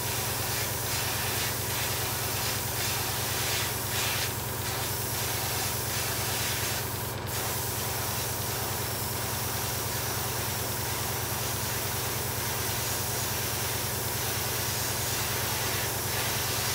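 Airbrush spraying a mist coat of thinned enamel paint at about 15 to 18 PSI: a steady hiss of air and paint that swells briefly a few times early on. Under it runs the steady hum of the airbrush compressor.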